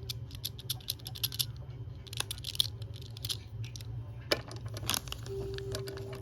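A run of small sharp clicks, irregular and close together, over a steady low hum; a steady tone comes in about five seconds in.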